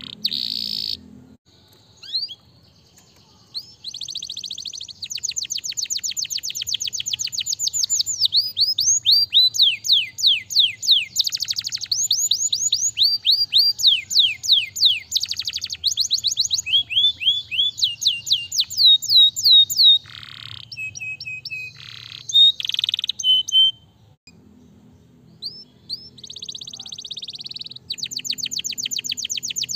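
Domestic canary singing a fast song of rapid trilled phrases, quick runs of falling whistled notes repeated many times a second. The song pauses briefly near the start and again about two-thirds of the way through.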